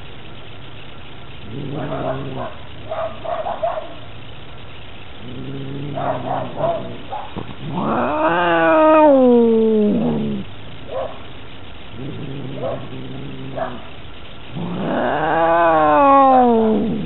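Domestic cat growling low in stretches, broken by two long, loud yowls that rise and then fall, about eight seconds in and again near the end: the growl-and-yowl of a crouched cat warning something off.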